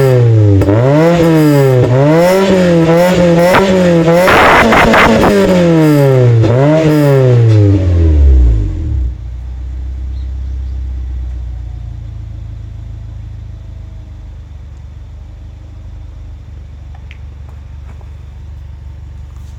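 Honda Domani's D16A four-cylinder engine revved in quick throttle blips about once a second, with one higher rev about four seconds in, heard through an aftermarket OBX Racing Mugen-style silencer on a straight mid-pipe, the loud revs distorting the recording. About nine seconds in the revs drop away and it settles to a steady, quieter idle.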